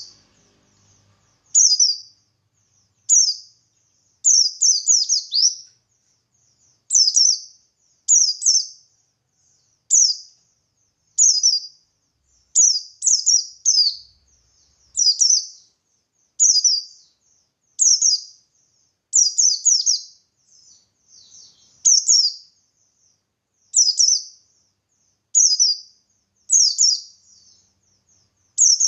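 Pleci buxtoni white-eye singing in the 'ngalas' style: short, high chirping phrases about once a second, some in quick runs of two or three, the kind of song played to provoke other pleci into answering.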